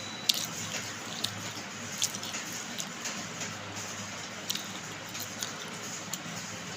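Baked clay pot pieces being crunched: scattered sharp crackles and clicks, irregularly spaced, over a steady hiss.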